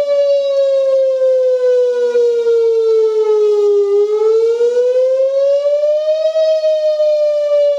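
Whelen WPS 2905 electronic siren sounding a slow wail for a tsunami warning. The tone falls for about four seconds, rises for about two and a half, then begins to fall again.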